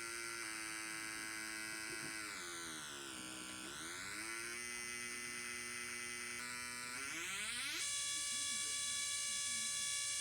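Buzzy electronic tone from a Chaney C4722 sound synthesizer kit's speaker, rich in overtones. It holds one pitch, slides down about two seconds in, climbs back up, and settles on a higher steady tone near the end.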